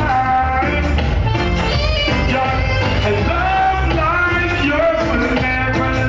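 Live dancehall music through a club sound system: a singing voice carries a melody of held, gliding notes over a heavy bass line.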